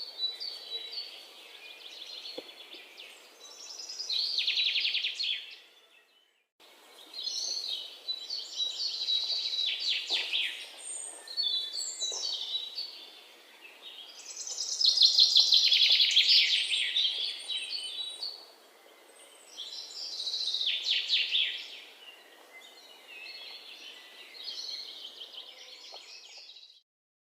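Songbirds chirping and singing in quick, high runs of notes, in loud spells that come and go every few seconds over a faint background hiss. The sound drops out briefly about six seconds in and cuts off just before the end.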